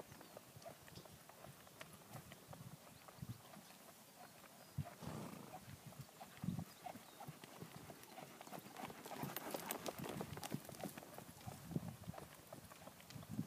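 Hoofbeats of a ridden horse moving around a sand-floored round yard: irregular, dull thuds on the soft dirt, some louder than others.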